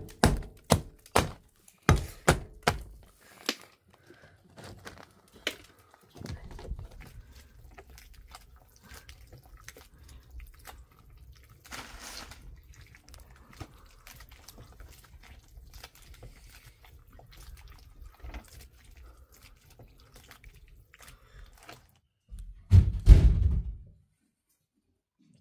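Something being struck hard and repeatedly: about nine heavy thuds in quick succession, then a faint low steady rumble and one loud low burst near the end.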